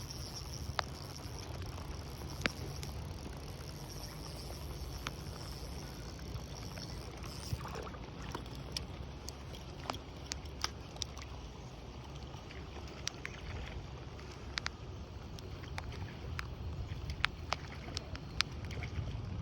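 Outdoor ambience: a steady low rumble with scattered light clicks, and a steady high hiss that stops about eight seconds in.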